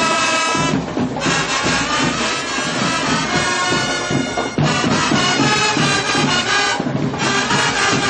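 Brass-led school marching band playing a loud march tune, the horns holding long notes, with a few brief breaks between phrases.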